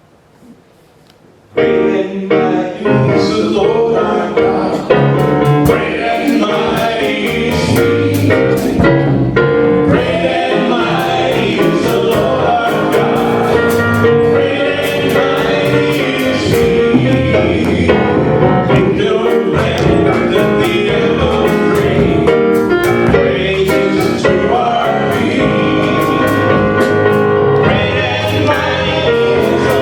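Gospel worship song with singers and a band, drums included, starting abruptly about a second and a half in.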